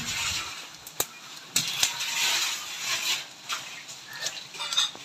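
Sliced tomatoes tipped from a steel plate into a large pot of hot biryani masala, hissing and sizzling in bursts as they hit. A few sharp clicks come in the first two seconds.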